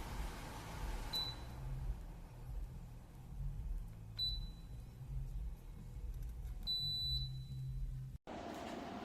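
Electronic beeps from a Dreo Cruiser Pro tower fan's controls: three high single beeps about three seconds apart, the last one longer, as settings are changed. The fan's airflow hiss drops after the first beep, with a low rumble underneath. The sound cuts abruptly near the end to a different steady hum.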